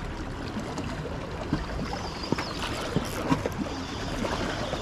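Water lapping and slapping close by, with wind on the microphone and scattered small ticks.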